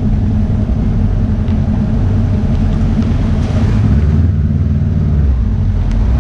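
Honda CB500X motorcycle's parallel-twin engine running steadily at low speed, heard from on the bike.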